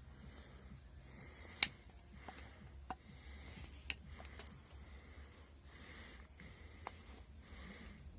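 Faint rubbing and a few sharp metallic clicks, the loudest about one and a half seconds in, as the new universal joint cross and its bearing cups are handled and fitted into the driveshaft yoke.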